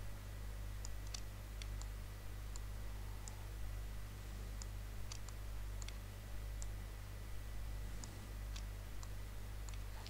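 Computer mouse clicking: about fifteen single, irregularly spaced clicks as control points are picked one after another with shift held. A steady low hum runs underneath.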